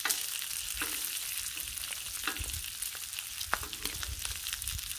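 Bacon frying on a flat-top griddle: a steady sizzle of hot fat with scattered crackles and pops.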